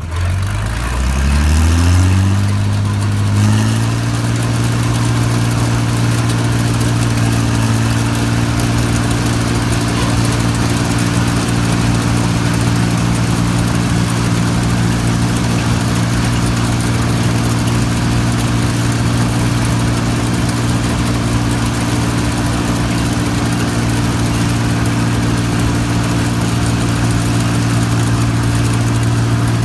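New Holland Clayson 1545-S combine harvester's diesel engine speeding up over the first three or four seconds, then running at a steady high speed, with a steady hiss over it.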